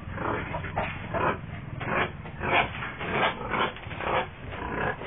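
Boar grunting over and over: short, rough grunts about two a second, unevenly spaced.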